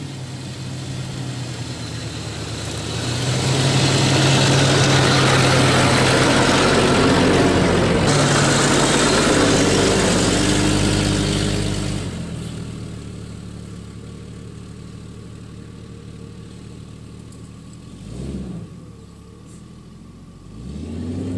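Jeep engine running, building to a loud drive with a rushing noise over it for several seconds, then easing back to a quieter steady run. Two short revs come near the end.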